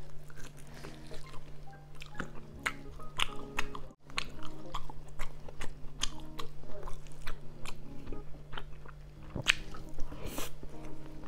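Close-miked chewing of pork rib adobo and rice eaten by hand, with many short sharp mouth clicks and smacks. A bite of rice about ten seconds in is the loudest moment. Soft background music plays underneath.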